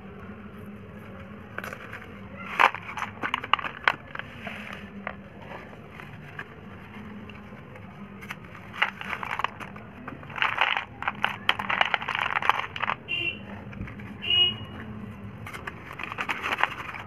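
Slate pencils clattering as they are tipped out of small cardboard boxes onto a plastic plate and onto each other, in several bursts of dry clicking rattles.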